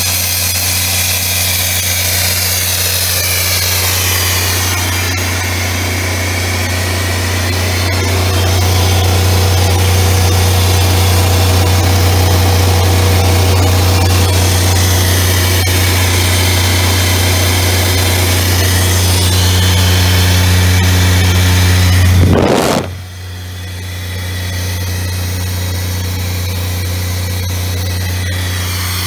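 Atlas Copco XAS37 portable air compressor's diesel engine running steadily with a low hum. Near the end a brief loud rush of noise cuts across it, and the hum is quieter for a moment afterwards.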